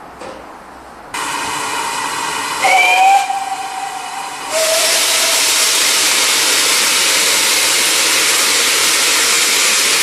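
Steam hissing from the GWR 6400-class pannier tank locomotive 6412, with one short whistle blast, rising slightly in pitch, a little under three seconds in. From about halfway on, a loud, steady hiss of steam blowing from the open cylinder drain cocks as the engine starts away with its train.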